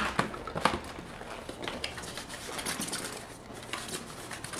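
Cardboard packaging being handled: a few sharp knocks as the box is lifted, then rustling and scraping of cardboard and paper.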